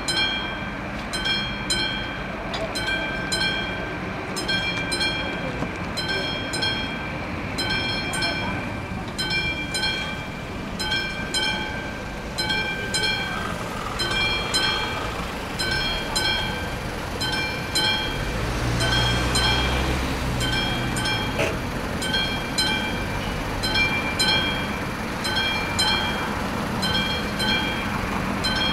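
Railway level-crossing warning bell ringing steadily, about two strikes a second, sounding while the barriers are down and the red lights flash to warn of an approaching train. A low engine rumble comes in underneath for a few seconds about two-thirds of the way through.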